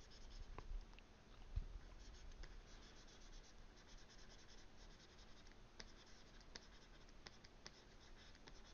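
Faint scratching and light tapping of a stylus drawing on a graphics tablet, with a few sharper ticks in the second half.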